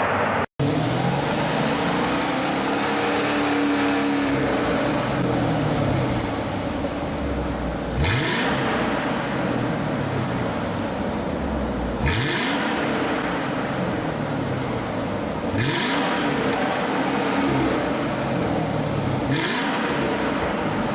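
Mercedes-Benz CLK500 V8 running loudly through a one-off exhaust, revs climbing with a sharp change in the note four times, as when accelerating up through the gears.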